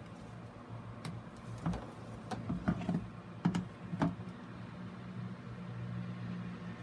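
Hard plastic clicking and knocking as the plastic grid mounting board is handled and turned on a plastic bin: a scatter of sharp knocks over about two seconds, against a steady low hum.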